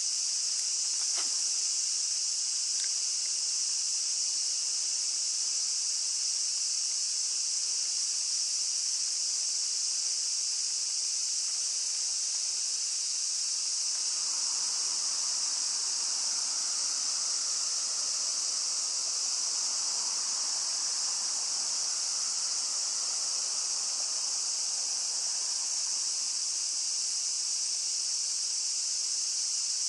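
Loud, unbroken, high-pitched shrilling of a summer cicada chorus. A softer, lower hiss swells in and fades away in the middle.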